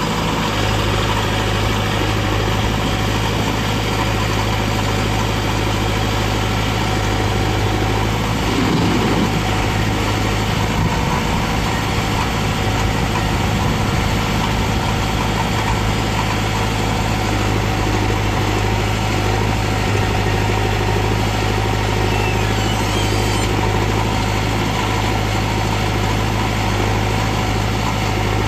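Diesel engines of a JCB 3DX backhoe loader and a Mahindra tractor running steadily at close range, with a brief swing in engine pitch about nine seconds in.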